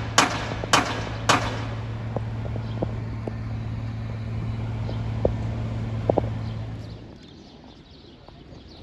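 Three sharp knocks about half a second apart, ending a run of such blows, over a steady low hum that cuts out about seven seconds in.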